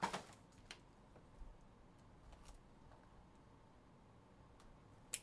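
Handling noises from a cardboard trading-card box being picked up and opened: a knock at the start, a few faint clicks and scrapes, and a sharp click near the end.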